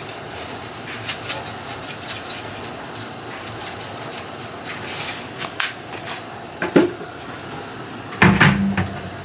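Kitchen handling noise while seasoning food: a run of light clicks and taps from a spice container being shaken and handled, a sharp clink about seven seconds in, then a louder thump near the end.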